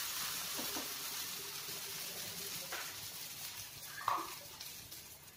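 Uttapam batter sizzling faintly on a hot tava: a steady hiss that slowly dies away, with a brief faint sound about four seconds in.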